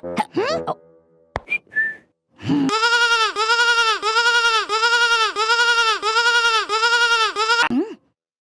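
Cartoon sheep-bleat sound effect: one long wavering 'baa' pulsing about twice a second for some five seconds. Short sliding squeaks and a brief whistle come before it.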